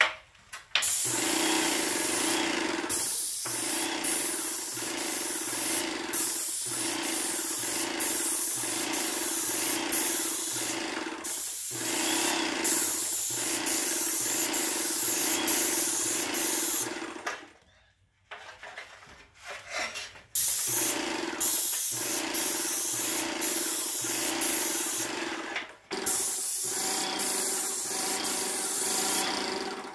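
Airless paint sprayer spraying paint onto a board ceiling: a loud, steady hiss from the spray tip over a steady pump hum, in long passes. It cuts off briefly several times as the trigger is let go, with a longer break just past halfway.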